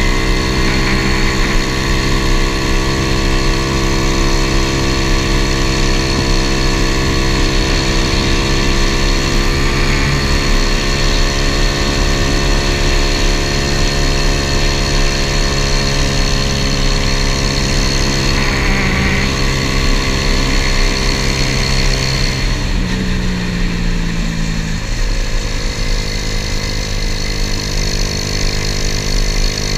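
Single-cylinder 125cc pit-bike engine in a Honda ATC70 mini three-wheeler running steadily at a cruise. About three-quarters of the way through, the engine note falls and stays lower as the throttle eases off.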